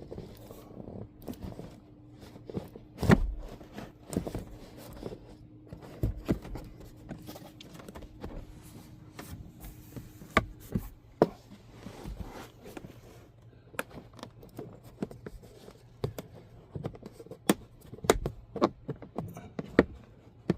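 Plastic interior trim being handled and pressed back into place by hand: scattered clicks, knocks and scrapes, the loudest knock about three seconds in. A faint steady hum runs underneath and stops about ten seconds in.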